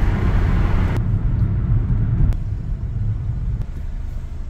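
Low road and engine rumble from inside a moving car's cabin. It changes abruptly about a second in and softens near the end.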